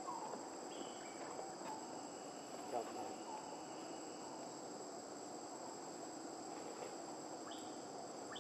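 Steady, high-pitched drone of an insect chorus in the forest, with a brief faint call about three seconds in.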